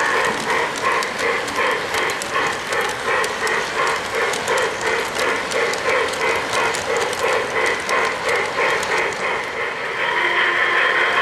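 O-gauge model passenger train rolling along three-rail track, with a rhythmic clatter about three beats a second and sharp clicks from the wheels. About ten seconds in, the clatter gives way to a steady hum.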